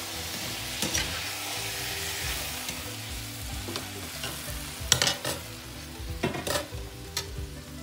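Chopped onions and tomatoes sizzling in a frying pan as a spoon stirs them, with a few sharp knocks and scrapes about a second in and again around five and six and a half seconds in.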